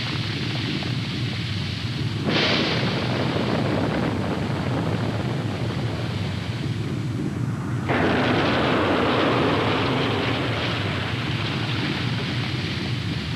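Blast of a 600-ton conventional explosive charge: a continuous rumbling noise with no distinct shots, which jumps abruptly louder about two seconds in and again about eight seconds in.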